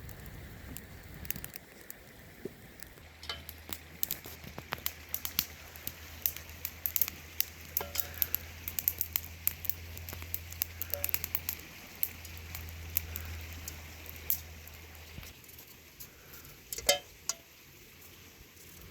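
Food frying over an open fire, sizzling with dense sharp crackles over a low steady hum that stops about three-quarters of the way through. A couple of sharp knocks follow near the end.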